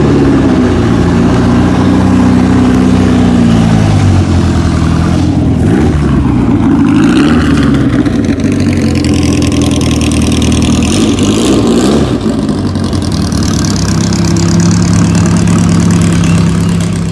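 Bertone Stratos Zero's four-cylinder V4 engine pulling away, its revs rising and falling several times through the first twelve seconds. A second sports car's engine follows near the end with a steadier note.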